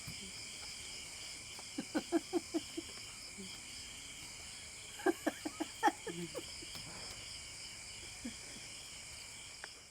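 Insects chirring steadily in a high, even drone, with two short runs of quick, low pitched calls about two and five seconds in.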